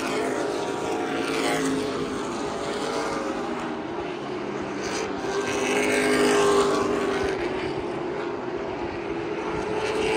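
Virginia Racer division stock car engines racing around an oval short track. The engine notes rise and fall in pitch as the cars pass, swelling loudest about six seconds in.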